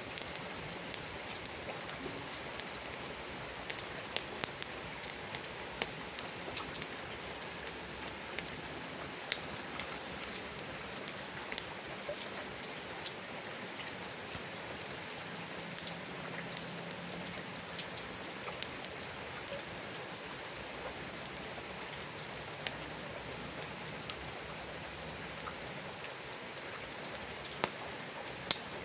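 Steady rain hiss with scattered sharp pops and crackles from a wood campfire burning.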